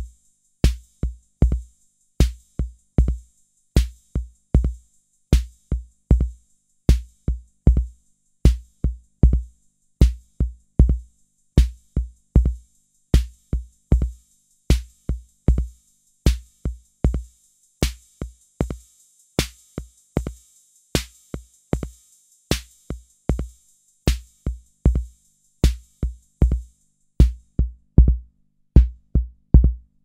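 Roland TR-606 analog drum machine pattern played through the SYNTRX's output filters: deep kick drum and short clicky hi-hat hits in a steady rhythm. The high hiss above the hats fades away near the end as the filter is turned down.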